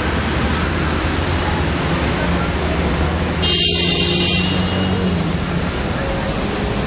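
Steady noise of busy road traffic with a low engine hum, and a brief high, ringing sound lasting about a second, about three and a half seconds in.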